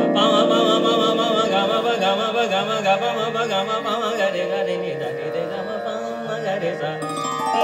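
A man singing a wordless Indian classical-style vocal run into a handheld microphone, with long held notes and wavering, ornamented turns of pitch.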